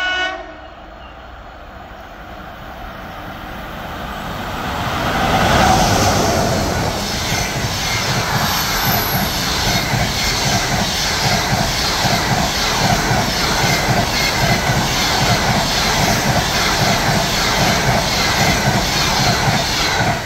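Passenger train hauled by an EP1M electric locomotive approaching and passing close at speed: the sound swells to its loudest about six seconds in as the locomotive goes by, then holds as the long string of coaches rushes past with a steady rhythmic clatter of wheels over rail joints.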